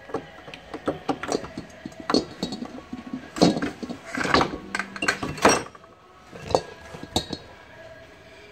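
Irregular metal clinks and knocks as an old refrigerator compressor is handled and worked free for removal, the heaviest knocks coming in the middle.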